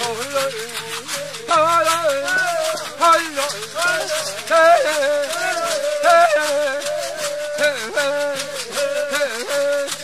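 Music: a shaken rattle keeps a quick, steady beat under a wavering melody.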